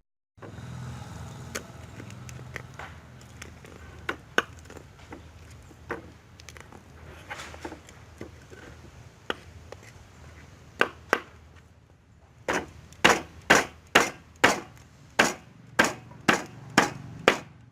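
A knife chopping on a wooden cutting board. At first the knocks are light and scattered; later comes a steady run of about ten hard chops, roughly two a second.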